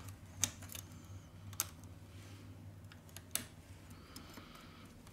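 Three faint, sharp clicks of steel tweezers tapping and catching on the small parts of a phone's earpiece speaker module as it is pried out of the middle frame, over a low steady hum.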